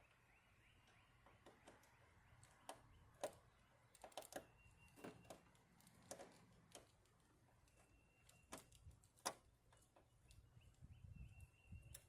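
Faint, irregular clicks and taps of a screwdriver and small parts working at a stubborn odd-sized Phillips screw, with a few brief high-pitched squeaks.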